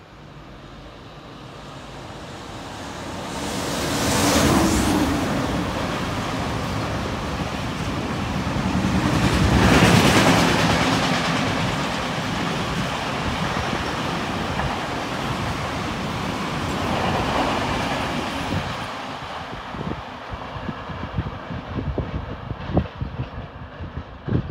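A train passing at speed close by. Its rumble builds as it approaches, peaks loudly twice as it goes by, holds as a steady rolling roar of the cars, then fades away with sharp clicks of wheels over the rails near the end.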